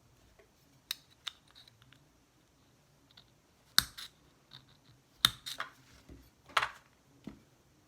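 Sharp clicks and taps of small plastic items being handled, about eight spread unevenly over several seconds, the loudest a few seconds in.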